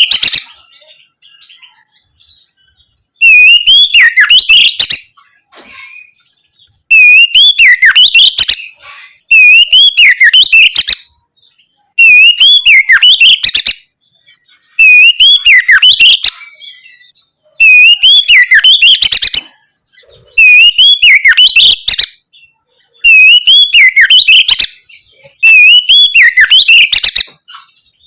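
Oriental magpie-robin (kacer) singing loudly, repeating the same phrase about nine times, one every two and a half to three seconds: each phrase a swooping whistle run together with a rapid rattle of high notes.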